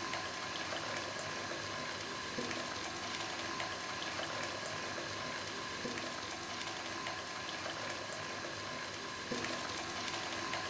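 Hot milk tea (chai) poured through a steel mesh strainer into a steel saucepan: a steady, faint trickle and splash of liquid, a little louder about nine seconds in.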